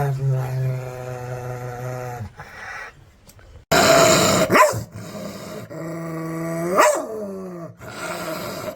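Angry dogs growling and barking: a long, even growl, then loud snarling outbursts about four and seven seconds in, in short pieces that cut abruptly from one to the next.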